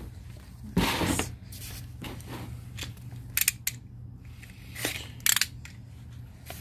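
Cardboard boxes being shifted and handled. A snap-off utility knife then slits the tape on a small cardboard box, with short sharp clicks and scrapes.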